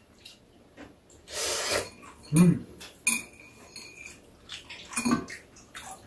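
Chopsticks and spoons clinking against bowls during a noodle meal, with one sharp clink about three seconds in that rings on briefly. Short slurping noises and brief low voice sounds come in between, the loudest about two and a half seconds in.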